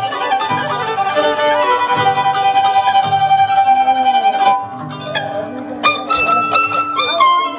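Live tipaki tipaki festival band music led by violins playing a stepped melody. The playing thins briefly just past the middle, then a higher, brighter violin phrase comes in.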